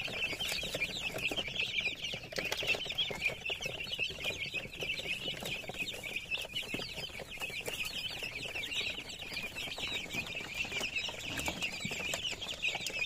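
A brood of young chicks, about three weeks old, peeping without a break: many overlapping short, high chirps.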